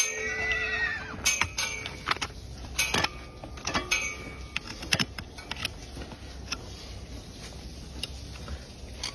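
Farrier's metal hoof tools clinking and knocking against a hard horse hoof, sharp separate strikes every second or so, with a short high rising-then-falling call right at the start.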